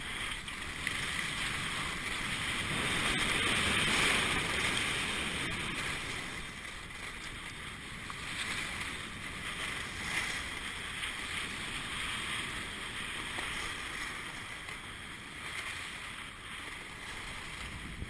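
Skis hissing and scraping over groomed snow during a downhill run, with wind noise on the microphone; loudest about three to five seconds in, then easing.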